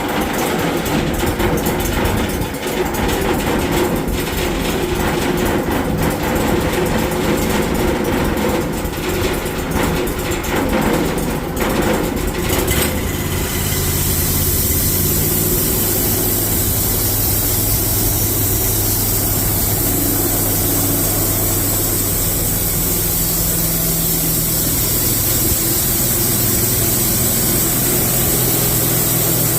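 Sawmill's 19 horsepower Kohler engine running. About 13 seconds in, the rough, uneven sound gives way to a steady hum with a high hiss.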